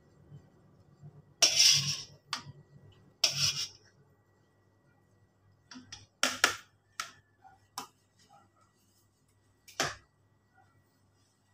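A metal wire-mesh strainer scraping and knocking against a wok and a ceramic bowl as chicken pieces are lifted out and tipped into the bowl. There are two longer scrapes in the first few seconds, then a handful of sharp taps.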